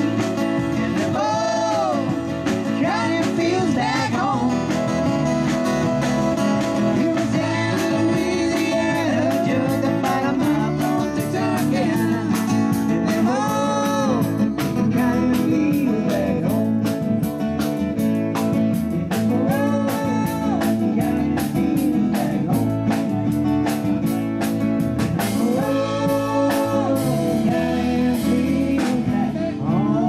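Live band playing: fiddle, acoustic guitar, electric bass guitar and drum kit, with long wavering melody notes over a steady drumbeat.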